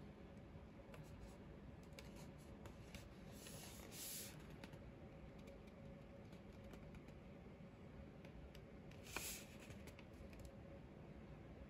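Faint handling sounds of a whisky presentation tube being turned in the hands: scattered light taps and clicks, with a short rub or slide about four seconds in and another about nine seconds in.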